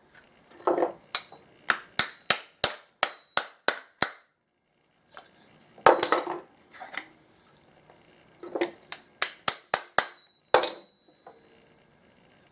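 A small hammer tapping a wooden plane's wedge and iron to seat and loosen them. There are two quick runs of light taps, six or seven each at about three a second, each tap with a faint metallic ring. Between the runs come rustling sounds of the parts being handled and slid in and out.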